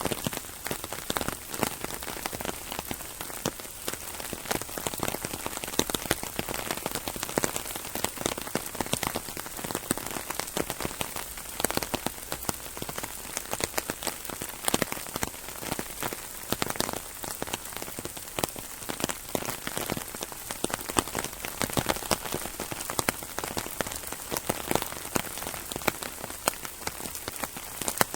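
Rain shower drumming on an umbrella: a steady, dense patter of drops with many sharp individual hits standing out irregularly.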